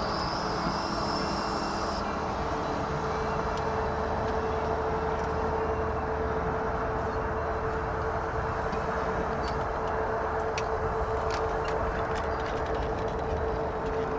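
Jet engines of a Boeing 787-9 (Rolls-Royce Trent 1000s) running steadily at low taxi power: an even rumble with a constant whine held at one pitch.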